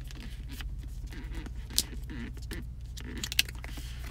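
Paper tear strip being peeled off an Apple Watch cardboard box, a papery crackling with two sharp snaps, one near the middle and one near the end, over a steady low hum.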